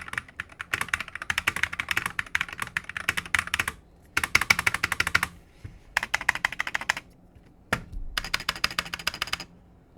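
Fast typing on an Akko MonsGeek FUN60 magnetic-switch keyboard, the keys clacking in several quick bursts with short pauses between. The switches and stabilizers are unlubricated and the case has no dampening mods, which the reviewer says gives it a hollow, poor typing sound.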